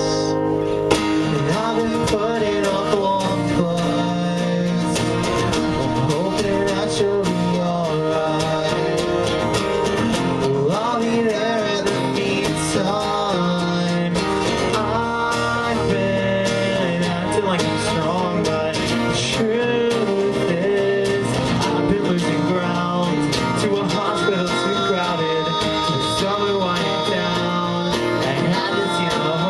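A band playing live: strummed guitar with a sung vocal over it.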